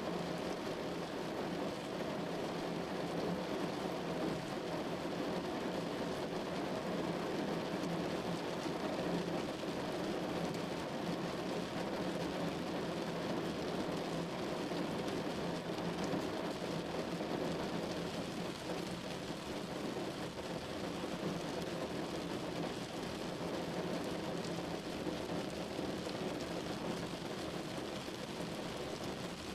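Steady rain falling on window glass, an even wash of fine drops with no let-up.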